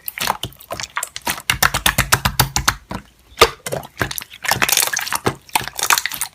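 Slime being squeezed and worked by hand, making rapid, irregular popping and crackling clicks.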